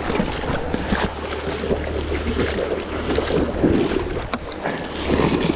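Water sloshing and splashing, with wind buffeting the microphone as a steady low rumble.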